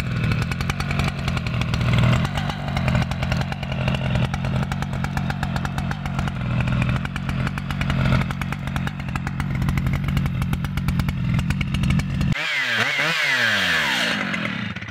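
Stihl MS 881 Magnum, a 121.6 cc two-stroke chainsaw, idling steadily during break-in of the new saw. About twelve seconds in the sound changes abruptly to a higher engine note rising and falling in pitch as the saw cuts into a log, then cuts off.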